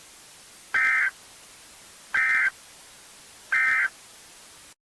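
Emergency Alert System end-of-message data bursts: three short, buzzy digital squawks about a second and a half apart, marking the end of the alert, over a steady hiss that cuts off abruptly near the end.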